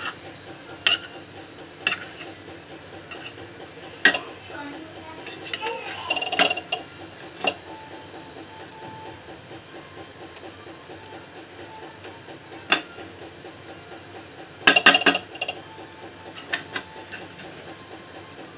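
A metal spatula stirring cooked rice in a pan, knocking and clinking against the pan every few seconds, with a quick run of knocks about fifteen seconds in.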